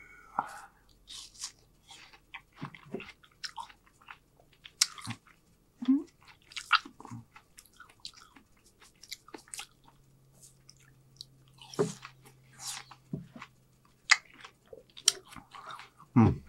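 Close-miked chewing and biting of seasoned watermelon: irregular crunchy bites and wet mouth sounds, with a louder bite near the end.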